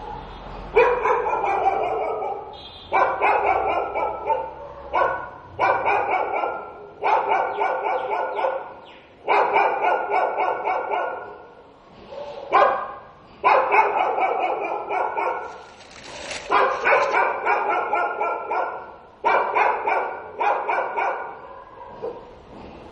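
Stray dogs barking in about a dozen runs of rapid barks, each lasting one to two seconds, with short breaks between them.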